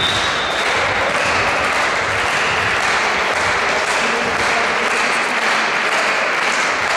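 Spectators clapping and cheering in a sports hall, a steady din of applause.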